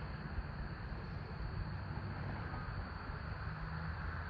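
Steady low rumble with a faint hiss over it, even throughout, with no distinct sounds standing out.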